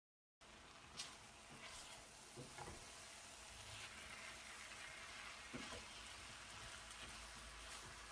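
Faint sizzling of grated pumpkin cooking down in a stainless steel pot to drive off its liquid. A wooden spoon stirs through it, with a few light taps against the pot, the sharpest about a second in.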